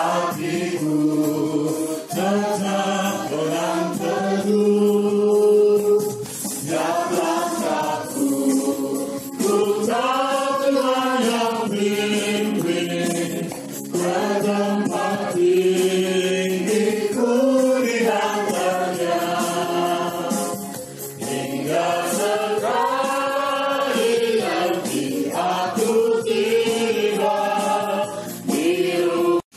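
Singing into a microphone through a speaker, with electronic keyboard accompaniment: several sung phrases with held notes and short breaks between them.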